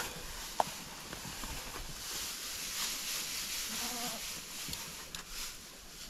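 A goat bleats briefly and faintly about four seconds in, over a steady rustling background. A single sharp click about half a second in is the loudest sound.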